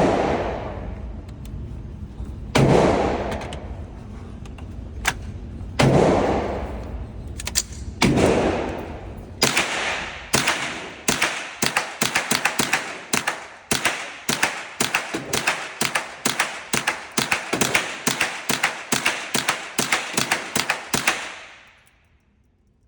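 A run of sharp, gunshot-like reports. Four separate bangs a few seconds apart each trail off in a long rumble, then a rapid string of about thirty cracks comes at two to three a second and stops abruptly.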